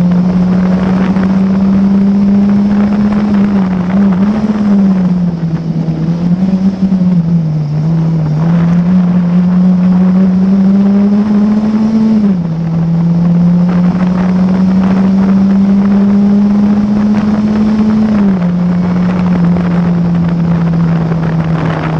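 Classic Formula Ford's 1600 cc Ford Kent four-cylinder engine at racing speed, heard from the cockpit: a loud, steady note that climbs slowly and drops sharply in pitch at each upshift, several times, with a brief dip and a jump back up in the middle as the car slows through a corner.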